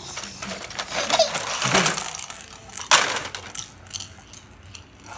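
Small hard objects clattering and clinking on a tile floor as a baby handles them, with one sharp clack about three seconds in.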